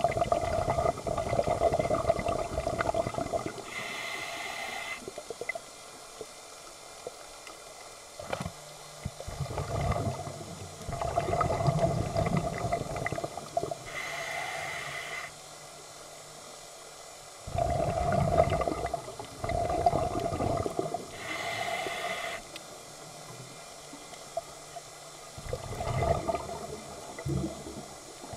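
Scuba diver breathing through a regulator underwater: long bursts of exhaled bubbles, each followed by a short hissing inhale, repeating about three times with quiet gaps between breaths.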